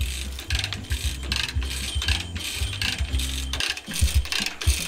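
Hand-pumped ratchet come-along winching a heavy load along a chain: quick runs of ratchet clicks, with a short pause a little past halfway.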